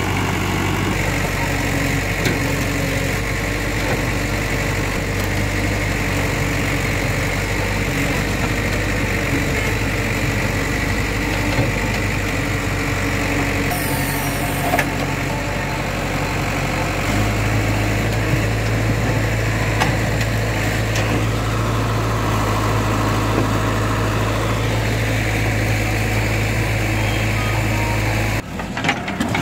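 JCB 3DX backhoe loader's diesel engine running steadily while the machine works its hydraulics. Its note changes and grows a little louder about halfway through.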